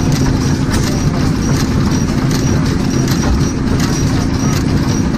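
Antique stationary gas engines running, with a steady low hum and a dense, even mechanical clatter of clicks and knocks. The nearest engine is an International Harvester Titan 6 HP.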